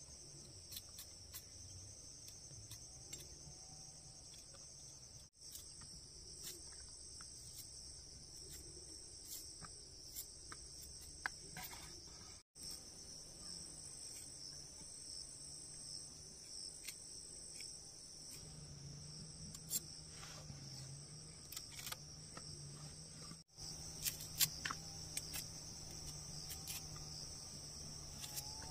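Steady high-pitched insect chorus, with faint scattered clicks and taps. It drops out for an instant three times.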